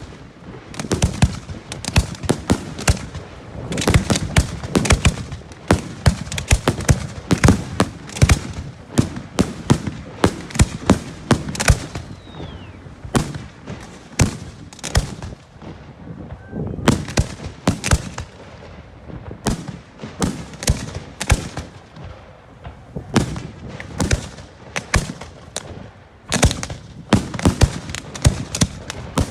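Fireworks display: a rapid, continuous barrage of shell bursts and crackling reports with short lulls between volleys, and a brief rising whistle partway through.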